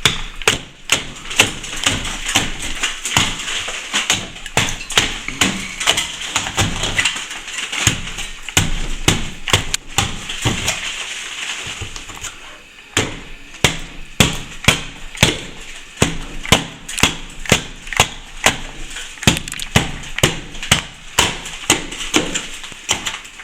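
A hand tool chipping and raking out a crack in a plaster ceiling to open it up for filling. Sharp taps come about two to three a second, with scratching of plaster between them.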